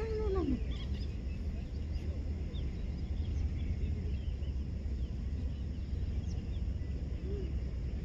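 Small birds chirping here and there over a steady low rumble, with one short rising-then-falling call at the very start and a fainter one near the end.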